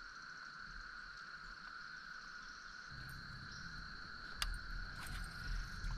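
Steady chorus of insects, crickets or similar, trilling in two steady high tones. About halfway through a low rumble comes in, with a couple of sharp knocks or clicks near the end.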